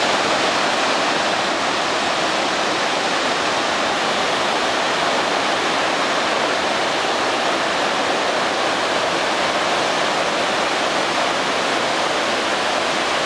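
Heavy flow of river water pouring over a dam's spillway: a steady, even rushing of falling water.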